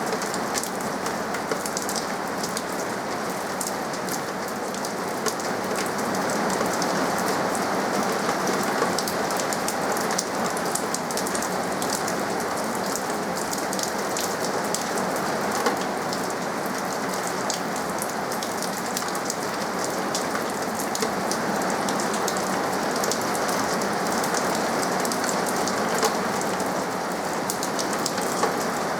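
Steady rain falling, with many individual drops pattering on surfaces over a dense, even hiss.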